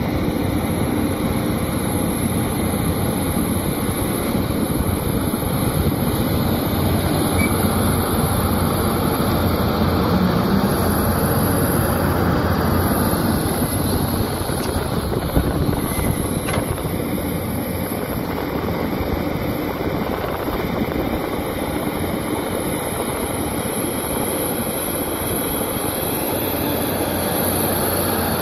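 Caterpillar hydraulic excavator working close by, its diesel engine running steadily under load as it digs soil and rock. There is a single sharp knock about halfway through.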